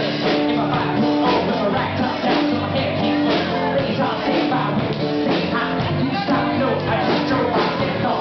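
Loud live rock music from a bar stage band: drums with a steady beat, piano and singing.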